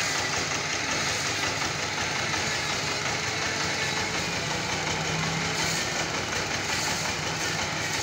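Engine of a two-wheel power tiller (walking tractor) running steadily.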